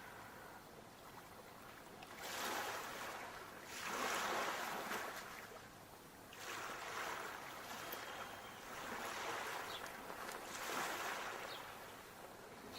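Sea waves washing in and receding, in about five swells that rise and fade one after another.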